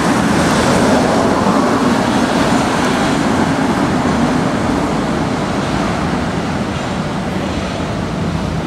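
Old Lisbon electric tram running through the street, a steady hum and rumble of its motors and wheels on the rails amid car traffic, slowly fading as it moves away.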